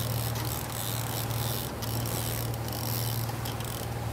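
Boat's outboard engine running steadily at trolling speed, a constant low hum under the hiss of water rushing past the hull and wake, with a few faint ticks.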